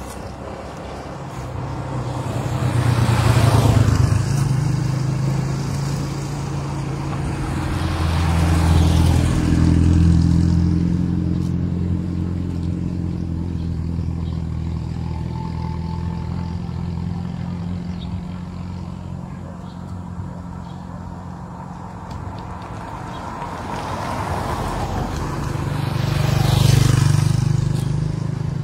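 Motor vehicles passing on a road, with three pass-bys swelling and fading: one a few seconds in, one about a third of the way through, and one near the end. A low engine hum runs underneath.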